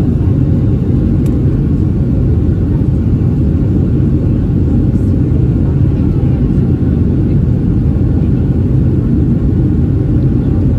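Steady low rumble of a Boeing 737-700's CFM56 engines, heard inside the passenger cabin, holding an even level with no change in pitch.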